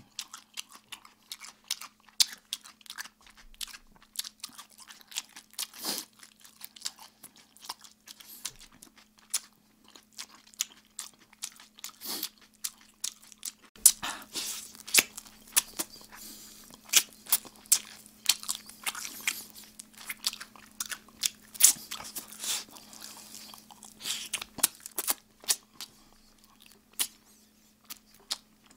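Close-miked crunching and chewing of Kyochon Red Combo fried chicken, with irregular crisp crunches that grow denser about halfway through. A faint steady hum runs underneath.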